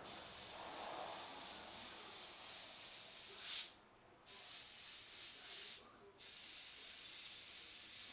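Airbrush hissing steadily as it sprays paint. The air stops twice for a moment near the middle, each time just after a short louder burst.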